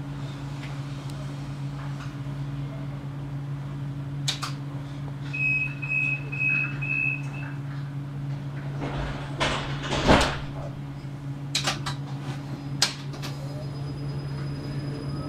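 Tram standing at a stop with its onboard equipment humming steadily. About five seconds in, four short high beeps of the door-closing warning, then a loud rushing sound near ten seconds in and a couple of sharp knocks.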